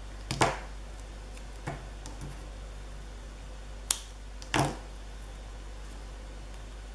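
Scissors snipping a small paper piece and paper being handled: a few short, scattered snips and rustles, with a sharp click near four seconds and another rustle just after, over a low steady hum.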